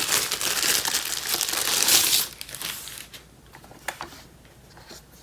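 Packaging crinkling and rustling as a smart door lock part is unwrapped, loud for about two seconds and then dying down to quiet handling, with a single sharp click near four seconds in.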